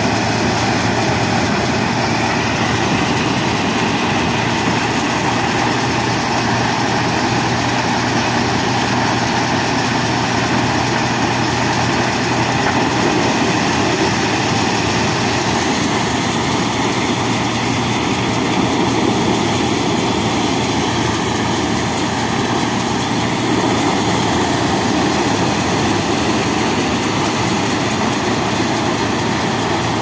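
Elevator-type maize thresher running steadily: a loud, continuous mechanical din with an engine hum underneath, holding the same level throughout.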